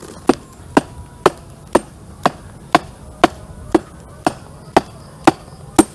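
A tool knocking on wood in a steady rhythm, about two sharp knocks a second.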